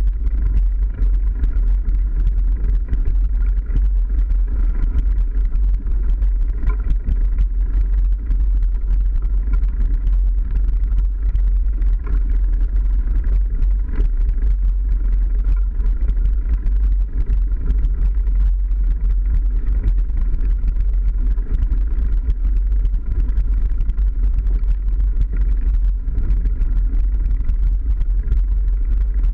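Wind buffeting the microphone over a steady deep rumble from a mountain bike rolling over a dirt forest track.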